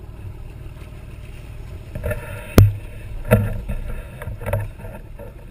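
Water sloshing and splashing as a lassoed shark thrashes at the surface, with one sharp knock about halfway through and a couple of duller thumps after it.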